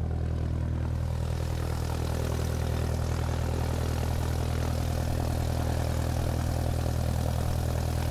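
Propeller aircraft engine running at a steady drone, with a fast, even pulsing in its low hum.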